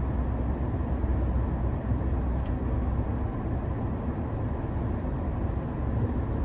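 Mahindra Thar driving on a rough mountain road: a steady low engine and road noise with no sudden events.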